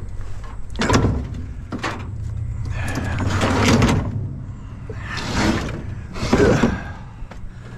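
A push lawn mower being heaved onto a steel trailer bed: a knock about a second in, another just after, then scraping and clunking of the mower's wheels and deck on the metal floor several times as it is shoved into place.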